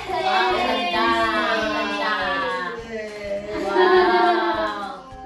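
A child singing in long, drawn-out notes that slide up and down in pitch.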